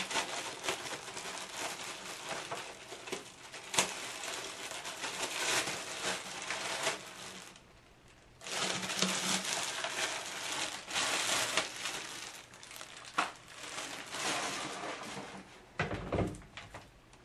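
Plastic packaging bags crinkling and rustling as hair steamer parts are pulled out of them, with a short lull about halfway through and a low thump near the end.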